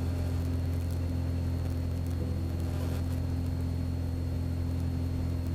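Small propeller airplane's piston engine and propeller droning steadily at climb power just after takeoff, heard inside the cabin, with a faint steady high whine above it.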